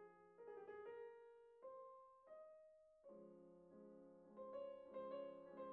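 Quiet background piano music: a few slow single notes, then repeated soft chords from about three seconds in.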